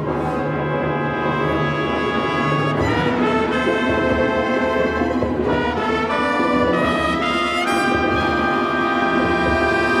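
Live orchestra playing loud, held chords that shift to new harmonies about three times.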